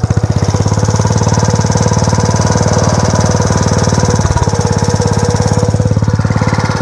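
A small 3.5-horsepower engine running fast and steady as it drives the plunger of a home-built one-third-scale hay baler, with a rapid, even pulse. It eases slightly near the end.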